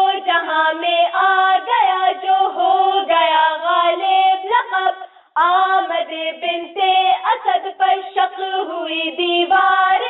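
Young female voices singing an Urdu devotional song (manqabat) for Imam Ali's birth, with a brief pause about five seconds in.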